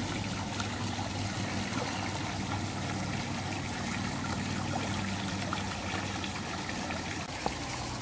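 Water trickling and splashing steadily down a small rock cascade into a shallow pond.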